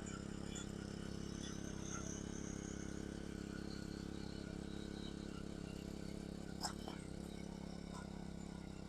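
Rented garden tiller's small gasoline engine running steadily under load, with a sharp click about six and a half seconds in.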